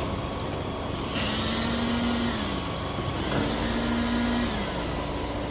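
Heavy machine engine running steadily, revving up and dropping back twice, each rise held for about a second.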